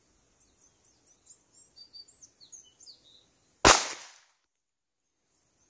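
A single shot from a Rock Island 1911 pistol in 9mm, sharp and loud, about two-thirds of the way in. Birds chirp faintly before it.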